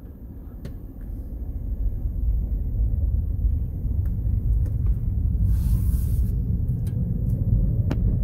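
Low rumble of a car's engine and tyres on the road, heard from inside the cabin while driving, growing over the first couple of seconds. A few faint clicks and a brief hiss about six seconds in; the sound cuts off suddenly at the end.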